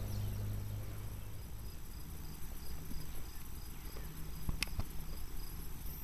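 Quiet outdoor background noise: a low steady rumble with a faint high chirping about three times a second, and two light clicks a little past the middle.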